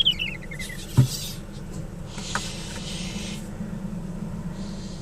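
Leopard gecko making its noises: a quick run of chirps falling in pitch at the start, then a breathy hiss lasting over a second, over a steady low hum. A sharp thump comes about a second in.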